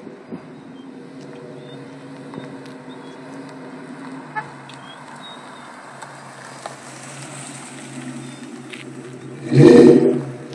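2001 Ford Mustang GT's 4.6-litre V8 breathing through Flowmaster 44 mufflers and a UPR X-pipe, running steadily at low speed, then a short, loud burst of throttle about a second before the end as the car passes close.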